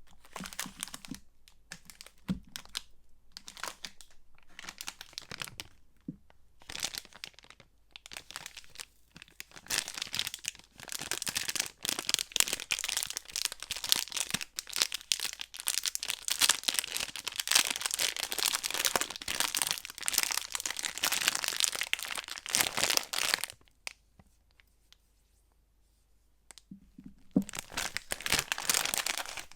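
Soap wrappers being crinkled and torn open by hand: short rustles at first, then a long stretch of dense crinkling and tearing, a brief pause, and more crinkling near the end.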